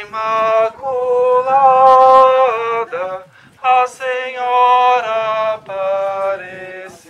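Singing: a slow melody in long held notes, with a short break about three seconds in and a fade near the end.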